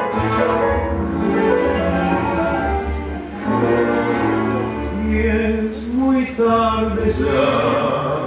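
Live tango music from a small band with piano and double bass, playing a continuous melodic passage over a steady bass line.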